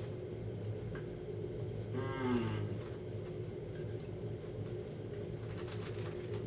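A man chewing a bite of bread with hummus, with one low closed-mouth 'mmm' of enjoyment about two seconds in, its pitch falling. A steady low hum runs underneath.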